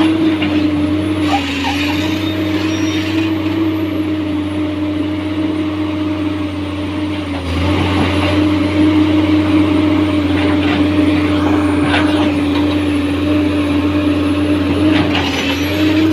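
Excavator running steadily, its engine and hydraulics giving a loud, nearly constant whine that dips slightly in pitch a few times, over a low hum, with a few faint knocks.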